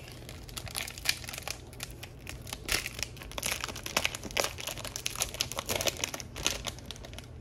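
Plastic wrapper of a trading card pack crinkling as it is opened and handled: a steady run of irregular sharp crackles.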